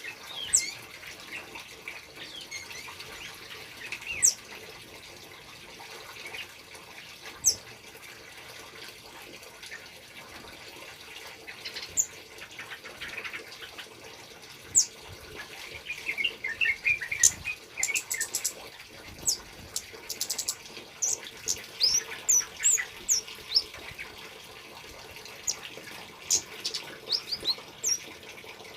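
Male kemade bird singing and calling: scattered sharp, high chirps and whistles, with quick rattling flurries of notes a little past the middle. A steady trickle of running water goes on underneath.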